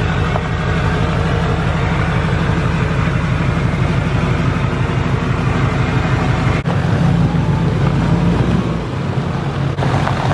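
Duramax 6.6 L V8 turbodiesel in a lifted Chevy Silverado, with cat, muffler and resonator deleted, running loudly at low speed as the truck rolls slowly along. The sound changes abruptly about six and a half seconds in.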